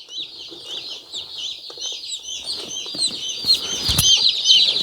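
Dozens of day-old broiler chicks peeping continuously, many short, high cheeps overlapping and growing louder toward the end, with a single knock about four seconds in.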